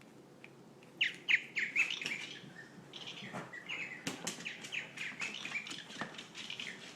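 Bird chirping in a rapid, busy run of short, falling chirps that begins about a second in.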